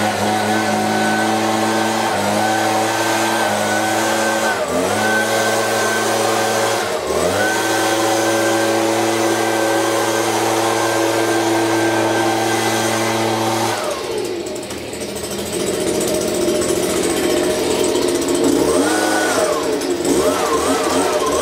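Handheld gas leaf blower running at full throttle, its pitch dipping briefly three times as the throttle is eased, then dropping to a lower, unsteady speed about two-thirds of the way through, with a couple of quick revs near the end.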